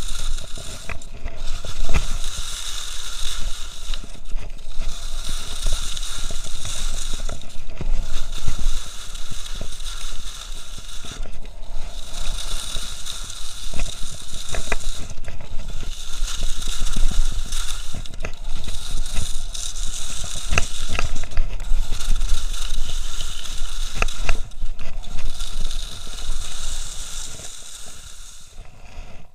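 Skis scraping and carving over firm snow at speed, swelling and easing with each turn every few seconds, with a low rumble of wind on the microphone. The sound dies down near the end as the skier slows.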